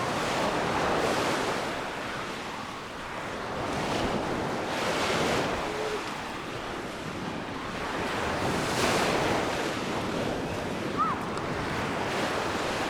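Small Mediterranean waves breaking on the shore, the surf swelling and washing in about every four seconds, with a brief high chirp near the end.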